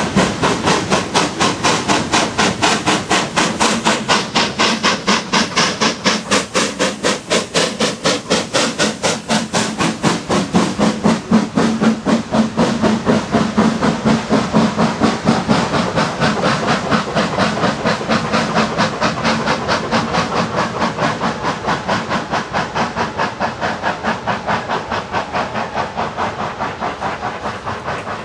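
Industrial steam tank locomotive working hard as it hauls a goods train away, its exhaust beating in a rapid, even rhythm with steam hiss. The beats slowly fade as it draws away.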